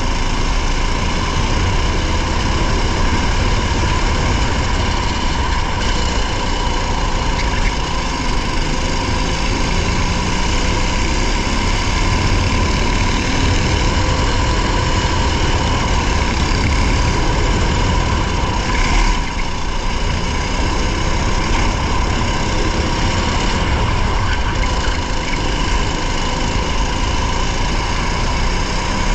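Racing vehicle's engine and vibration noise heard from an onboard camera, loud and steady with a low rumble and a constant hum, and one brief louder jolt about two-thirds of the way through.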